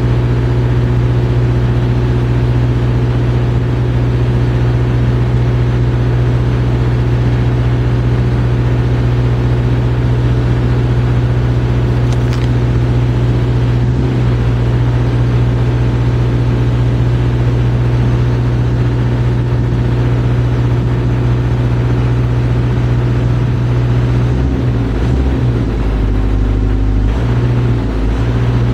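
Engine of a JLG 660SJ telescopic boom lift running steadily with a low hum as the boom and platform are moved; the engine note changes unevenly near the end.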